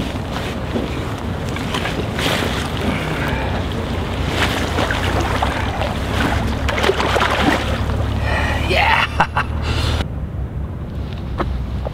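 Water splashing and sloshing as a large sturgeon is handled on a wet unhooking mat and slid back into the lake, over a steady low wind rumble on the microphone. About ten seconds in this cuts to a duller, steady background.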